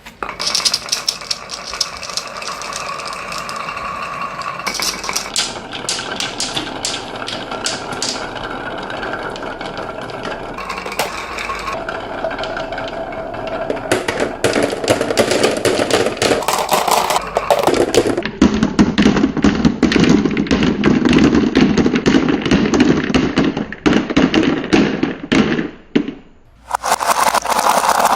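Marbles rolling and clattering down a wooden marble run, with many sharp clicks as they hit the track and each other.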